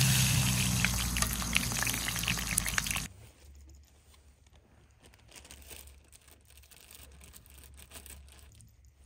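Eggplants and green peppers sizzling in a cast-iron skillet over charcoal, a steady hiss with small crackles. It stops abruptly about three seconds in, leaving only faint scrapes and clicks of a spoon working tomato paste into a bowl of diced tomatoes.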